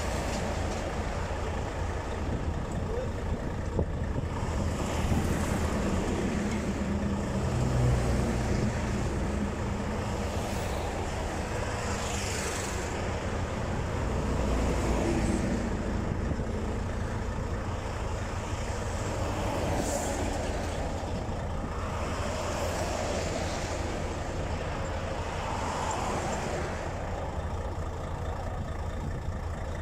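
Highway traffic passing close by: heavy trucks and cars going past at speed, several passes swelling up and fading over a steady low rumble.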